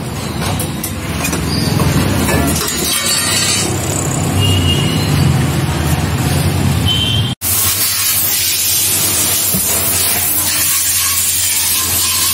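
Street and vehicle noise around roadside scooter work, then, after a sudden cut, a steady loud hiss.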